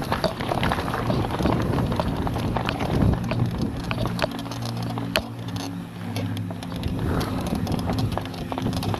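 Downhill mountain bike clattering and rattling over a bumpy dirt trail at speed, with many sharp knocks from the bike and rough tyre noise on the ground.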